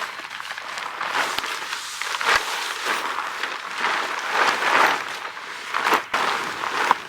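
Tent fabric rustling in irregular swells as the tent is handled and pitched.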